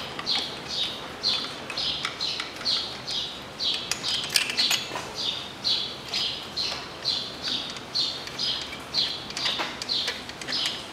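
A bird chirping over and over, short falling chirps at about three a second, with a couple of faint clicks.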